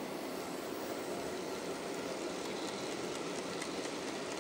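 OO gauge model goods train running along the track behind a Hornby Black 5 steam locomotive: a steady rumble of the wagons' wheels on the rails and the locomotive's motor, with a few light clicks near the middle.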